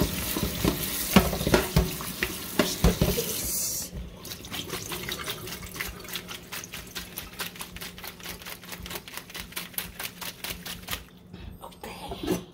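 Kitchen tap running into a sink, shutting off about four seconds in. Then a quick, even series of light ticks, several a second, goes on until near the end.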